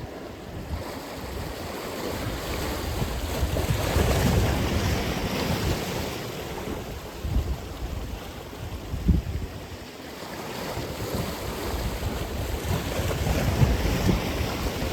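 Atlantic Ocean surf: waves breaking and washing up the shore, swelling twice, with wind rumbling on the microphone.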